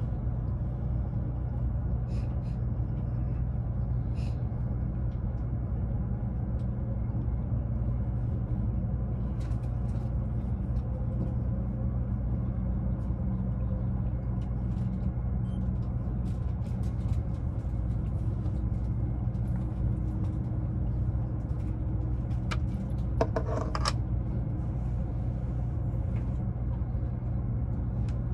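Cabin noise inside an E353 series limited express electric train: a steady low rumble and hum, with scattered light clicks and one short clatter late on.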